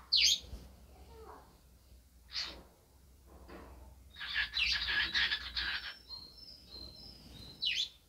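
Cockatiel calling. A sharp high chirp comes at the start and another about two seconds later, then a dense chattering warble runs for about two seconds, followed by a run of short whistled notes and one more sharp chirp near the end.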